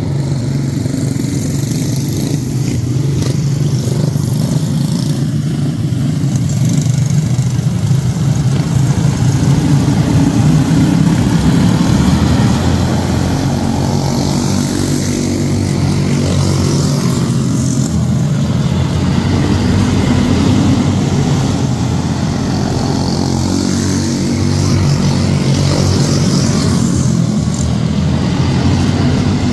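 A pack of quarter midget race cars with single-cylinder Briggs & Stratton Animal engines racing around a dirt oval. Their engines run together in a steady buzzing drone that swells louder several times as the pack comes past.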